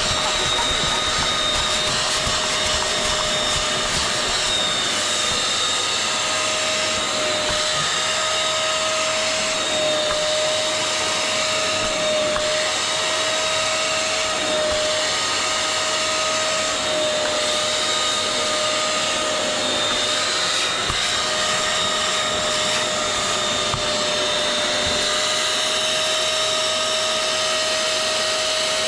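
Vacuum motor running steadily with a constant high whine, sucking soapy foam and dirty water out of an Alcantara seat during cleaning.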